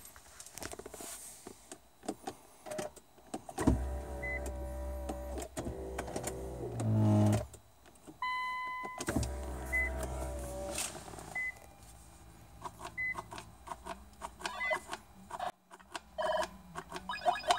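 Infiniti M45 cabin electrics as the push-button ignition is switched on: an electric power-adjust motor whirs twice for a second or few each time, rising in pitch near the end of the first run. A chime sounds midway, and short single beeps repeat about every second and a half, with clicks from buttons being pressed.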